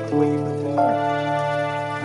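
Background music of soft sustained chords that change just under a second in.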